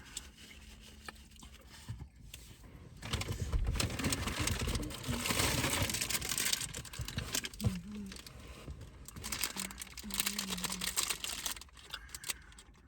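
Plastic wrapping crinkling and rustling in two long spells, full of small crackles, as a wrapped caramel apple is handled and unwrapped.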